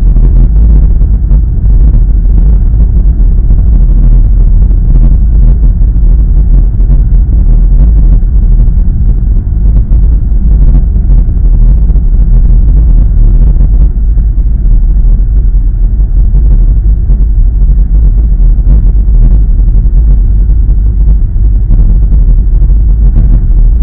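Loud, steady low rumble of a car driving at road speed, heard from inside the cabin: engine and tyre noise, with faint scattered ticks.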